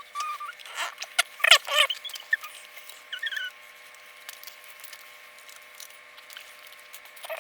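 High-pitched squeaky chirps mixed with sharp clicks for about the first two seconds, a few small squeaks around three seconds in, then a quieter stretch with only a faint steady hum.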